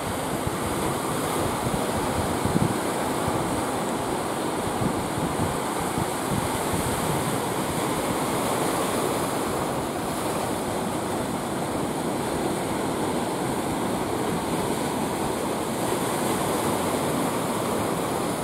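Surf washing steadily onto a beach, with wind buffeting the microphone.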